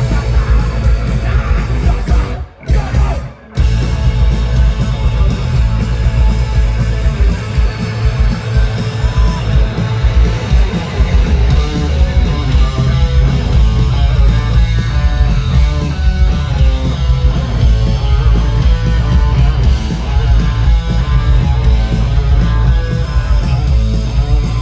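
Punk rock band playing live through the festival PA: electric guitar, bass and drums with vocals. The music drops out briefly twice, about two and a half and three and a half seconds in, then plays on without a break.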